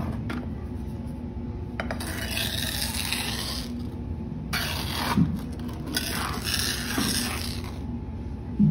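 Sand scraping over a flat metal disc as it is pushed through with a tool and hand, in a few rasping strokes of one to two seconds each. There are a couple of soft knocks, the loudest about five seconds in and near the end.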